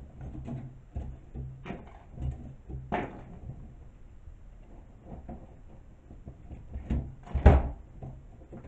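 Scattered knocks, clicks and rattles of a wire wreath frame lined with wooden clothespins being handled and worked with pliers on a craft table. The loudest knock comes about seven and a half seconds in.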